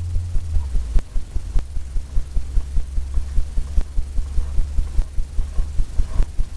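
Palette knife working paint against a stretched canvas: quick, even low thumps about four or five a second over a steady low hum, with a few sharper clicks.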